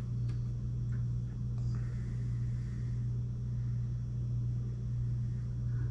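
Steady low background hum at an even level, with a few faint light clicks near the start.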